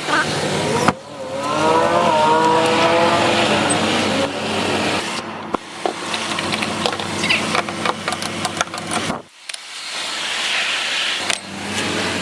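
Car engine speeding up, its pitch rising for a couple of seconds and then levelling off, over steady road noise; the sound breaks off and changes suddenly a few times.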